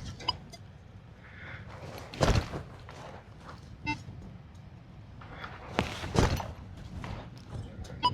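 Several dull thuds of a hand digging tool striking hard, dry ground, one about two seconds in and two close together near six seconds, with a few brief faint beeps from a metal detector.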